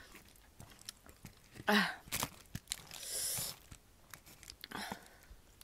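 Close-up chewing and small wet mouth clicks of someone eating spicy instant ramen noodles, with a short voiced sound a little under two seconds in and a hiss about three seconds in.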